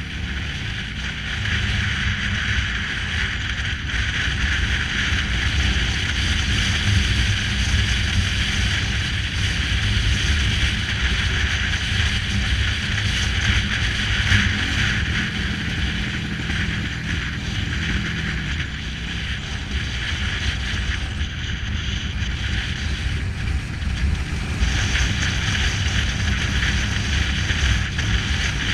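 Motorcycle engine running at road speed under a steady rush of wind over the microphone. About five seconds before the end the wind rush briefly drops away, leaving the engine rumble.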